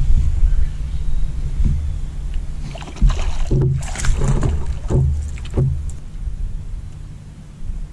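Low, uneven rumble of wind and water around a bass boat, with a few short noisy bursts about three to six seconds in.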